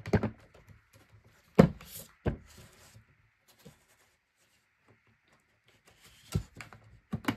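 Hard cast epoxy resin box panels knocking and clicking against each other as they are handled and slotted together: a handful of separate sharp knocks, with a quiet stretch between them.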